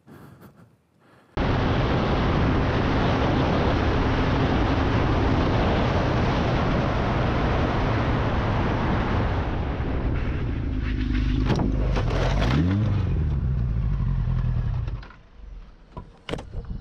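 Sport motorcycle riding at speed, heard from the rider's camera as loud wind rush over the engine, starting abruptly about a second in. The engine pitch rises quickly once near the middle, then the sound drops off suddenly near the end, followed by a few short knocks.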